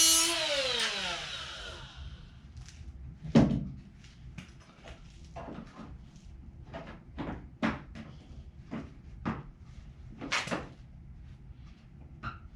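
Sheet-metal patch panel being handled: a clang at the start with a ringing tone that falls in pitch over about two seconds. A louder knock follows about three and a half seconds in, then scattered light knocks and clicks of metal being moved and set against the car body.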